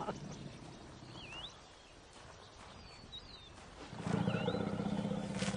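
A bird whistles a short phrase that dips and rises, three times, over faint outdoor background. About four seconds in, a loud, low, steady animal growl begins and carries on.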